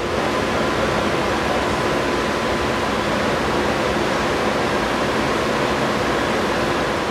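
Steady rushing air-conditioning and ventilation noise inside a railcar, with a faint constant hum.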